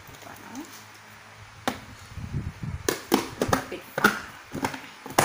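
A clear plastic lid being pressed and snapped onto a plastic mixing bowl: one sharp click about a second and a half in, then a run of hard plastic clicks and knocks through the second half.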